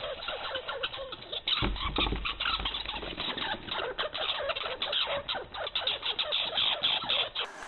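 A dense chorus of rapid, high squeaks and chirps from many small animals, overlapping without pause. About a second and a half in there is a low rumble, like the microphone being bumped or buffeted.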